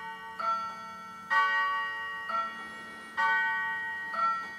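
Ting-tang clock chiming, striking two alternating notes about once a second, five strikes, each one ringing on and fading before the next.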